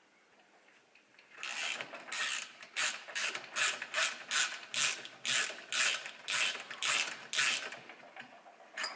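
Socket ratchet clicking in quick back-and-forth strokes, roughly three a second, as the cylinder head bolts are run down by hand. It starts about a second and a half in and stops a little before the end.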